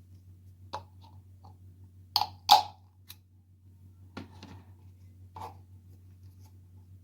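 A handful of light knocks and clicks as eggs are handled and set into the plastic egg holder of an electric egg boiler, two of them close together near the middle and the loudest, over a steady low hum.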